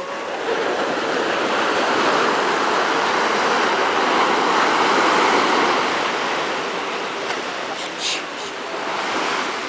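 Surf: a small wave breaking at the shoreline and washing up the sand, the rush swelling after about half a second and easing off after about six seconds.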